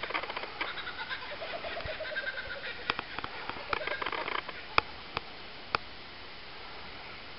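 Wild birds calling and singing over a steady outdoor hiss, with a few sharp clicks between about three and six seconds in.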